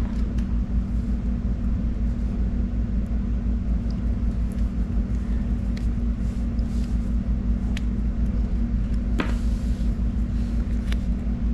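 Steady low mechanical rumble-hum, with a few faint clicks on top, the strongest about nine seconds in.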